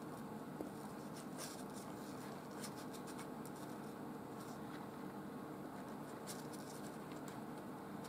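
Faint, scattered scratching and rustling of newborn kittens wriggling against their mother on cardboard while they root to nurse, over a steady low hum.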